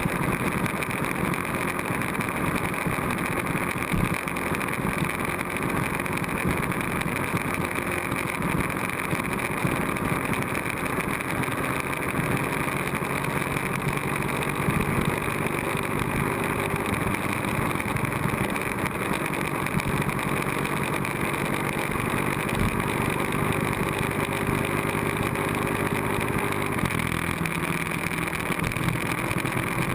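Ducati 1098S L-twin engine running at cruising speed, heard from the bike's tail camera along with wind and road noise. Its engine note shifts pitch in steps a couple of times, about a third of the way in and near the end.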